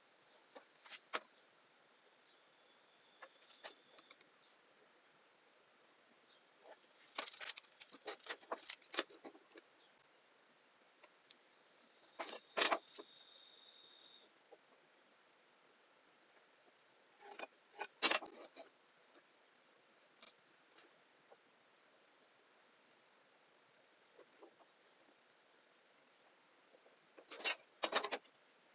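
Scattered sharp knocks and clicks of wooden pieces being handled, some in quick clusters, over a steady high-pitched drone.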